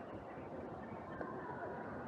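Busy street ambience: a steady wash of traffic noise, with faint voices of people nearby coming in after about a second.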